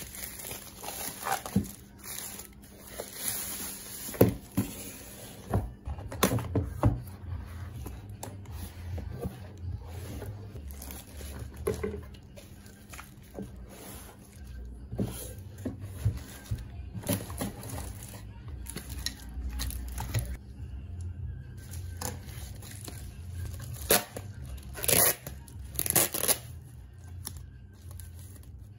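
Plastic mailer bag and bubble wrap being torn open and handled, irregular rustling and crinkling with sharp crackles, a few louder ones near the end.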